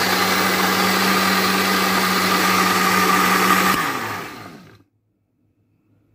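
Panasonic electric blender running at full speed, blending thosai batter with a steady motor hum. It is switched off a little before four seconds in and winds down, its pitch falling over about a second until it stops.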